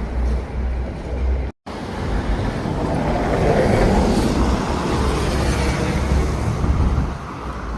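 Street traffic, with a vehicle passing close: the noise swells to its loudest in the middle and then fades, over a steady deep rumble. The sound drops out completely for a moment about one and a half seconds in.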